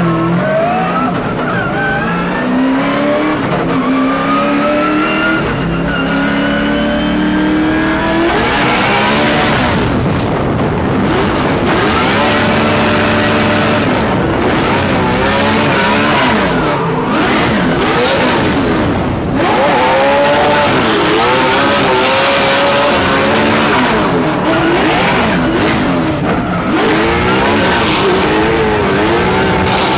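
LS-swapped V8 of a drift-built BMW E92 M3, heard from inside the cabin, accelerating hard with its pitch climbing for the first several seconds. Then the tires squeal and skid under a loud hiss while the engine pitch rises and falls again and again through the drift.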